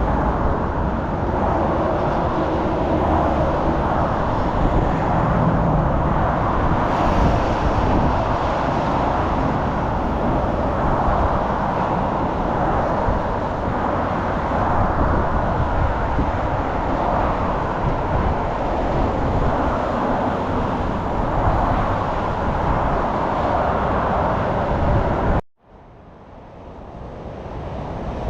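Steady road traffic noise, a continuous hum of passing vehicles. Near the end it cuts out abruptly and fades back in over a couple of seconds.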